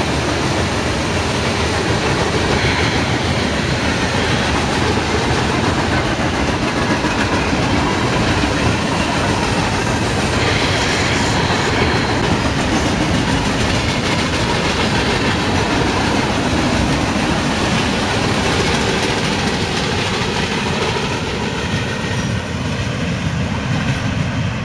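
Freight train passing close by, its tank cars, covered hoppers and boxcars rolling on steel rail in a steady rumble, with wheels clicking over the rail joints.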